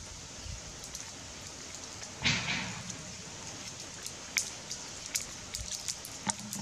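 A macaque eating crunchy green fruit among dry leaves: scattered sharp crackles and one brief rustling burst about two seconds in, over a steady hiss.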